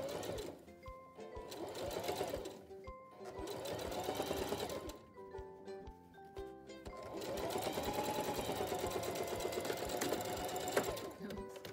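Electric sewing machine stitching in three runs, the motor whirring up to speed and slowing down again each time. Light background music plays throughout.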